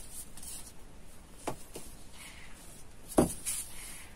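Fabric and tailor's tools being handled on a cutting table: soft rustling of the cloth and measuring tape, a light click about a second and a half in, and a sharper knock a little after three seconds in as a wooden ruler is laid down on the fabric.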